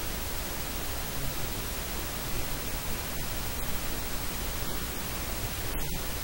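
Steady loud static hiss covering the whole range, with a low rumble underneath. It is typical of a faulty or noise-swamped audio feed, and no speech can be made out through it.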